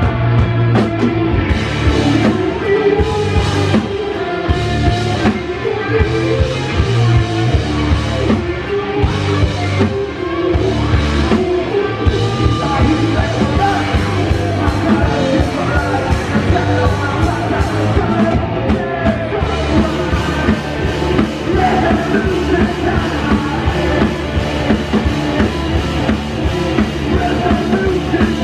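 Live rock band playing loud and continuously: electric guitars and drum kit, with a singer.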